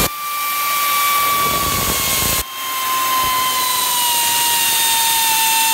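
Pneumatic 3/8-inch air ratchet running, a steady hissing whine that sinks slowly in pitch as it spins out the alternator's mounting bolts. The sound dips briefly about two and a half seconds in, then picks up again.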